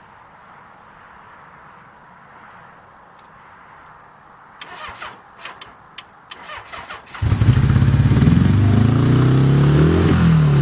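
Suzuki GS850 motorcycle being started: a few clicks and knocks, then about seven seconds in the engine catches and runs loudly. Near the end the revs rise and drop once before it settles to a steady idle. Crickets chirp faintly before the engine fires.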